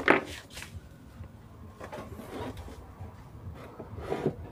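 A digital multimeter and its test leads being handled on a wooden workbench: a clunk as the meter is set down, then faint rubbing of the leads and another light knock near the end.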